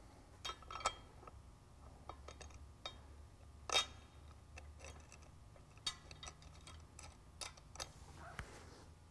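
Light metallic clicks and clinks of a steel washer and nut being handled and started onto a bolt on a steel mounting bracket, with one louder clink a little before four seconds in and a short scrape near the end.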